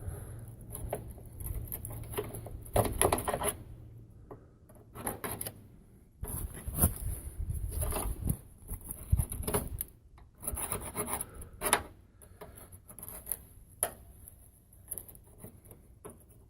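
Irregular rasping, rubbing strokes of hand work, each lasting about half a second to a second and a half, with short pauses between them.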